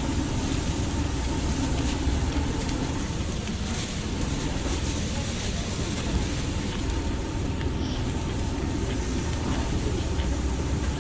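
Steady rushing noise with a low rumble from a direct-flame grill cooking chicken skewers.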